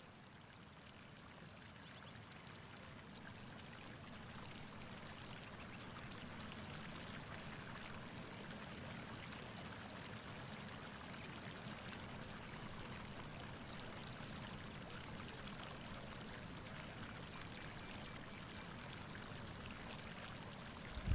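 Hot-spring water flowing and splashing, a steady even rush that grows a little louder over the first few seconds and then holds.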